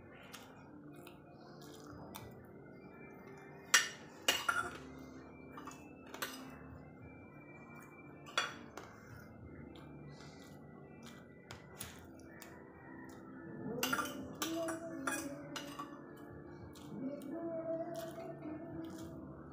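Metal spoon and fork clinking and scraping against a ceramic plate of rice, with a few sharp clinks, the loudest about four seconds in.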